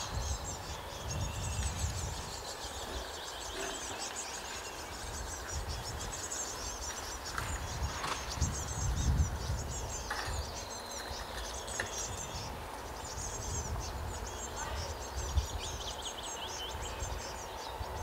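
Nestlings calling at the nest: rapid, high-pitched chirping in clusters, over a low rumble that swells about nine seconds in.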